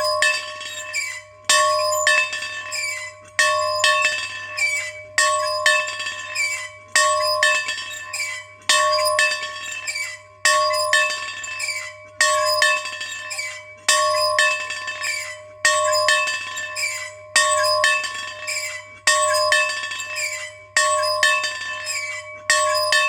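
A single bell being rung in a steady, even rhythm, a little more than one stroke a second, with louder and softer strokes alternating. It rings at the same pitch on every stroke, and each stroke rings on into the next.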